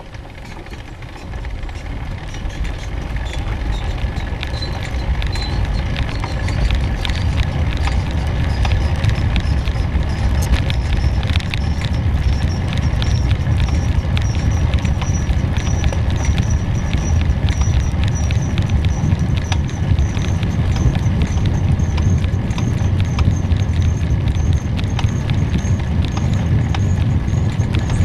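Wind buffeting the microphone on a moving bike, building up over the first several seconds as it gathers speed. Fast, steady clicking and rattling from the bike runs under the wind, with a faint high whine that slowly rises in pitch.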